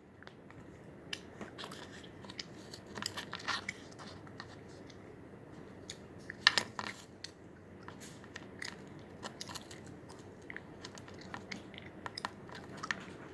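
Faint, irregular soft crunching and small clicks of sand slime being pressed and packed by hand into a plastic mold, with a louder cluster about halfway through.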